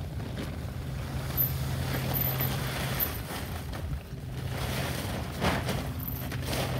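Wind rushing over the microphone. A plastic tarp rustles as it is picked up and lifted, louder from about five and a half seconds in.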